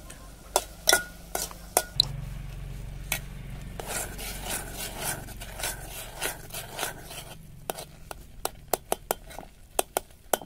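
Metal spoon stirring thick, cooking grated bottle-gourd halwa in a metal pot, with irregular clinks and scrapes of the spoon against the pot. The clinks come quicker in the last few seconds. For a few seconds in the middle there is a soft hiss from the hot mixture under the stirring.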